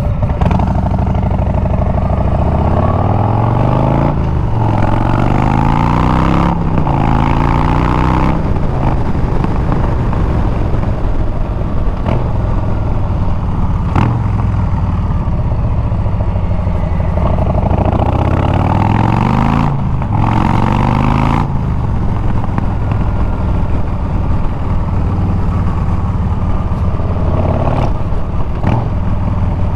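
Harley-Davidson Milwaukee-Eight 114 V-twin running through a Bassani exhaust while riding. The engine revs up through several gears, with short breaks at each shift in the first eight seconds and again around twenty seconds in, and runs steadily at cruising speed in between.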